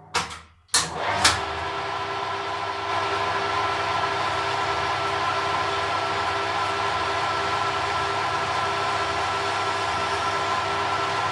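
A small metal lathe switched on with a click about a second in, then running steadily with a constant gear whine. A hacksaw blade is held against the spinning workpiece to cut it off, adding a steady scraping hiss that grows a little louder a few seconds in.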